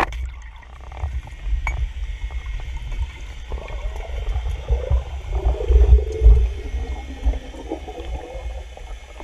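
Band-powered speargun fired underwater: one sharp crack right at the start, then the low rumble and thumps of water moving against the camera. From about three and a half seconds in, a wavering, gliding tone runs underneath for several seconds.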